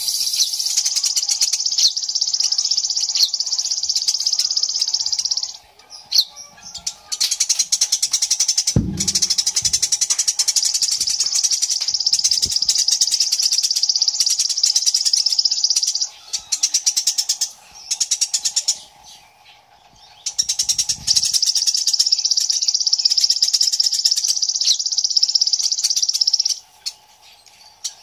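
Female Eurasian tree sparrow singing in long rolling trills ("ngeroll"): very rapid, tightly packed high chirps held for several seconds at a time. There are three long runs separated by short breaks, and a single low thump about nine seconds in.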